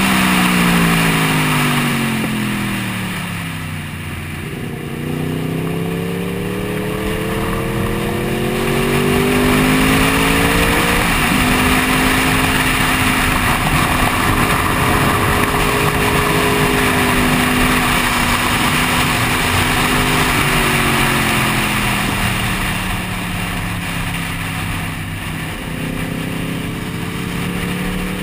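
Sport motorcycle engine at track pace, heard from on the bike. Its pitch falls as the bike slows into a corner, climbs under acceleration, drops sharply at a gear change about eleven seconds in, then holds steady before falling and rising again near the end. Wind rush sounds throughout.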